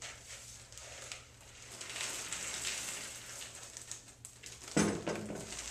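Trail mix of peanuts, M&Ms, craisins and kettle corn pouring from a plastic bowl into a zip-top plastic bag, a dry rattling and rustling that lasts about three seconds. A brief thump follows near the end.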